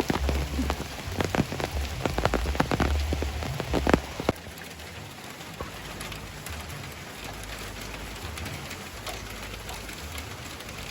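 Heavy rain, with many loud, close drops striking a surface. About four seconds in it cuts abruptly to quieter, steadier rainfall.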